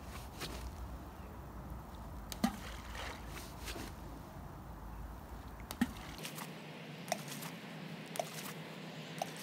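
Hand-thrown balls of carp groundbait landing in a pond, a short plop about every one to three seconds, five in all, the first two loudest. A low wind rumble runs under them.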